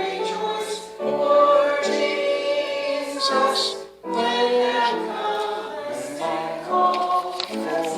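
A choir singing in harmony, sustained chords changing every half second or so, with a brief break about halfway through.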